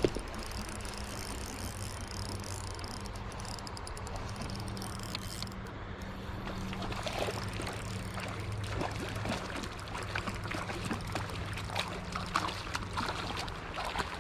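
River water running, with a steady low hum underneath. From about halfway in, a quick run of splashes and small clicks joins it.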